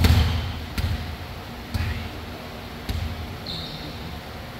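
A volleyball bounced on a gym floor four times, about once a second, before a serve, with a short sneaker squeak on the court about three and a half seconds in.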